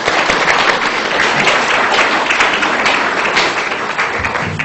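Audience applauding: dense, steady clapping that thins and dies away near the end.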